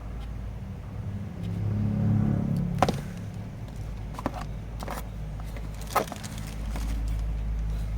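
Kress KU111 corded electric drill running with a steady low motor drone, with several sharp clicks.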